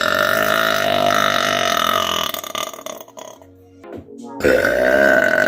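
Two long, drawn-out belches from a woman. The first fades about two and a half seconds in, and the second starts abruptly about four and a half seconds in.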